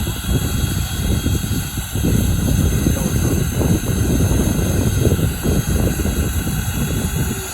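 Turbine-powered RC model helicopter running: a steady high turbine whine over a heavy, gusty low rumble.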